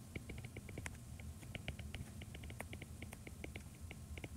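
A stylus tapping and sliding on a tablet screen while handwriting an equation: faint, quick ticks, several a second, in an uneven rhythm.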